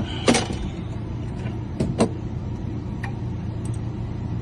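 A steady low engine hum from an idling vehicle, with four sharp clicks and knocks, two of them close together about two seconds in.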